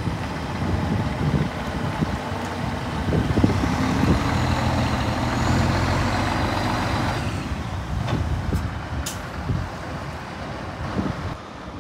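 Scania T124 tractor unit's diesel engine idling steadily, with a couple of brief sharp clicks or hisses about eight and nine seconds in.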